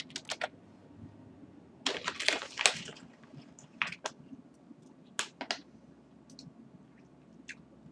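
Computer keyboard typing and mouse clicks: a few keystrokes at the start, a quick run of keys about two seconds in, then scattered single clicks.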